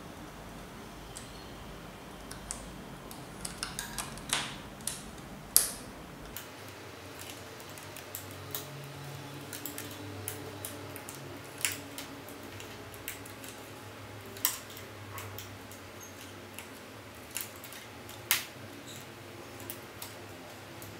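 Irregular small metallic clicks of a Passap knitting machine's needles being moved one by one by hand along the needle bed, over a faint low hum.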